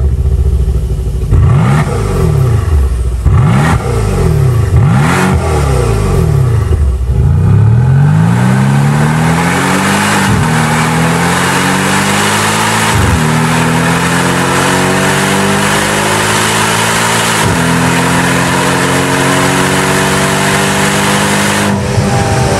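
Mercedes-Benz W205 C-Class engine through its stock exhaust: revved sharply three or four times, then accelerating hard with the pitch climbing through the gears, with three upshifts.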